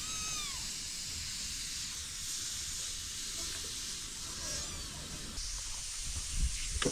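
Steady sizzling hiss of food cooking in a hot pan. A short falling pitched squeak comes right at the start, and a sharp knock near the end.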